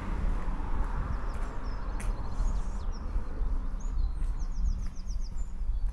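Small birds chirping, with a quick run of about seven high notes about four and a half seconds in, over a steady low rumble and a few soft clicks.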